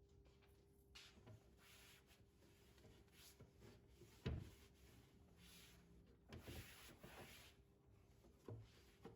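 Faint household handling sounds: several soft rubbing or wiping strokes, with a short knock about four seconds in and a lighter one near the end.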